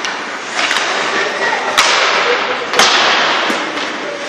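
Sharp cracks of hockey sticks and puck striking during ice hockey play: three loud ones about a second apart, each with a short echo.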